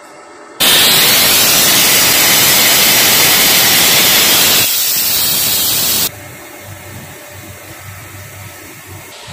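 Wire metal spray gun spraying aluminium bronze onto a hydraulic pump part: a loud, steady hiss of the spray jet that starts suddenly about half a second in, drops slightly just before five seconds and cuts off suddenly about six seconds in, leaving only a faint low background.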